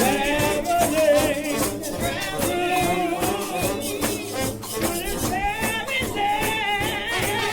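Gospel shout band music: lead horns playing a melody with a wide vibrato over fast, steady percussion.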